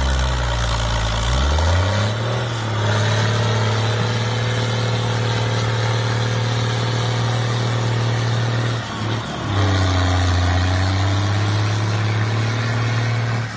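A motor running with a steady low drone. Its pitch rises about a second and a half in, then dips briefly and comes back up around nine seconds in.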